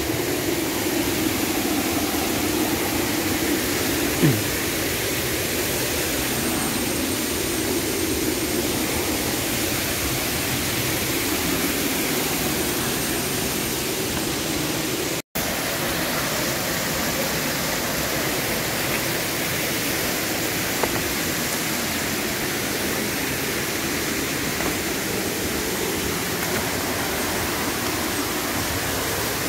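Monsoon-swollen waterfall rushing steadily, an even roar of falling water, with a brief dropout about halfway through.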